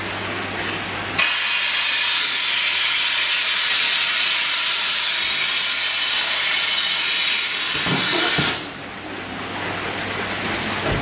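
Compressed oxygen hissing from a cylinder through a hose into a plastic fish bag, inflating the bag around a koi before it is tied off for transport. The loud hiss starts suddenly about a second in and eases off about eight seconds in, leaving a fainter hiss over a low hum.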